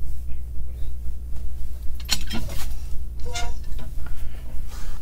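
Metal clatter about two seconds in, then a short ringing clank a second later, from the firebox door of a wood-burning kitchen stove being handled, over a steady low rumble.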